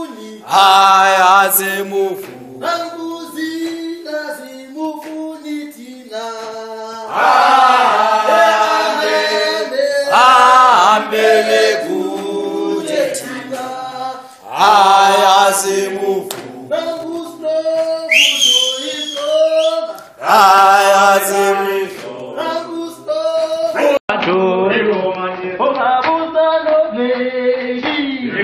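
A crowd singing and chanting a revolutionary slogan song together, in loud phrases with short breaks between them. A brief high whistle cuts through about two-thirds of the way in.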